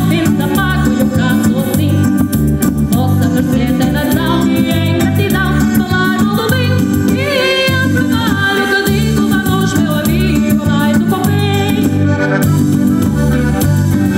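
Live band playing over a PA: electronic keyboard, electric guitar and drum kit keeping a steady beat, with a woman singing the melody.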